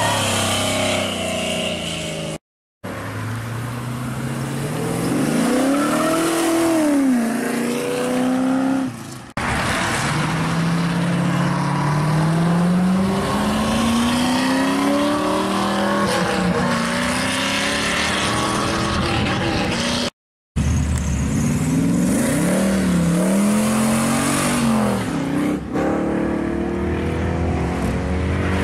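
Classic American muscle cars and hot rods accelerating away one after another, each engine's pitch sweeping up and then falling as the car goes by. The sound drops out abruptly twice between cars.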